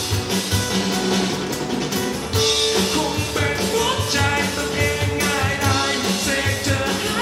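A rock-style song with a singer and a steady drum beat, played through Genesis Naptune GT65.2 two-way component car speakers on their original passive crossover, with no EQ.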